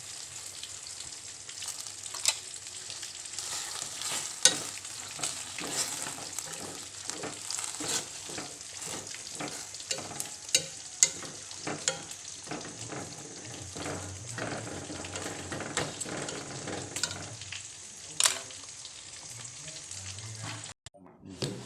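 Food sizzling in hot oil in a pan, a steady hiss with frequent sharp clicks and scrapes from a utensil stirring and turning it. The sizzle breaks off abruptly near the end.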